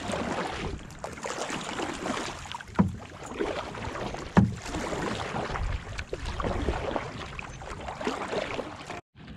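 Kayak paddle strokes splashing through the water as the kayak is paddled hard, with two sharp knocks about three and four and a half seconds in.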